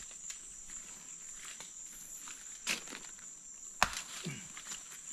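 Footsteps crunching through dry leaf litter and brush on a forest floor, with scattered twig crackles and one sharp snap or knock a little under four seconds in. A steady high insect drone runs underneath.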